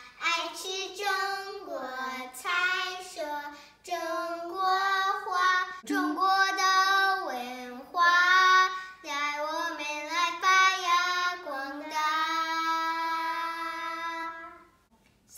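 Two young girls singing a Mandarin song together, ending on a long held note that stops shortly before the end.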